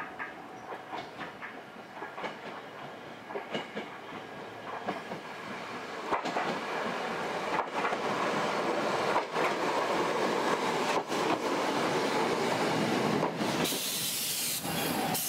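Choshi Electric Railway train running on the line, its wheels clicking over rail joints as it grows steadily louder. A loud hiss sets in near the end.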